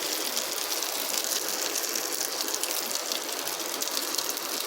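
Egg and eggplant mixture frying in hot oil in a pan: a steady sizzle with fine crackling.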